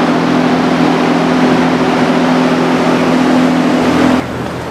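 Steam locomotive loudly venting steam: a hiss with a low steady tone in it that cuts off suddenly about four seconds in.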